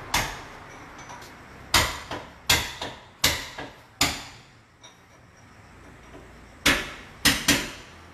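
Irregular series of sharp knocks and clanks, about ten in all. Most fall in the first four seconds, then a quiet stretch, then three more close together near the end, each ringing briefly.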